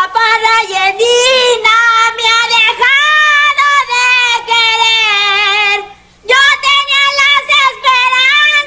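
A single very high-pitched character voice singing a song, the singing voice of a puppet rat, holding long notes with a short pause about six seconds in.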